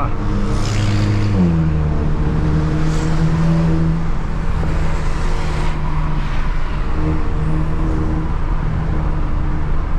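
Stage 2 tuned Volkswagen Jetta's 2.0 turbocharged four-cylinder under way, heard from inside the car. The engine note drops in pitch about a second and a half in as it shifts up, then holds steady at cruise with road noise, while a thin turbo whistle and a rush of air hiss come and go.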